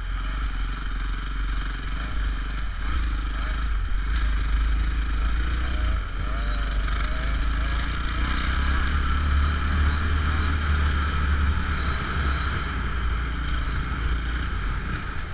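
Dirt bike engine heard from an onboard camera while riding, its pitch rising and falling with the throttle, under heavy wind rumble on the microphone.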